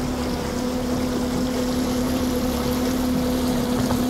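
Outboard motor of a Stabicraft 2050 Supercab aluminium boat running steadily at a slow cruising speed: a constant, even hum with no change in pitch.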